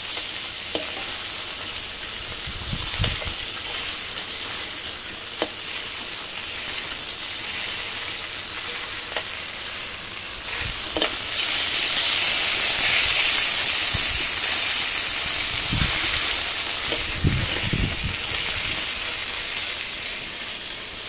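Whole koi fish (climbing perch) sizzling as they shallow-fry in hot oil in an aluminium kadai, with a metal spatula scraping and tapping now and then as they are turned. The sizzle swells louder for a few seconds about halfway through.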